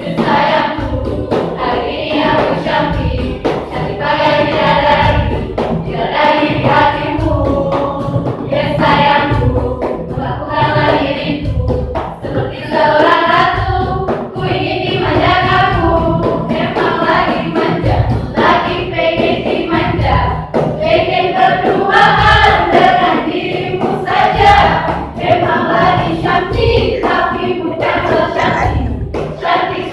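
High-school choir singing a song together over a steady low drum beat.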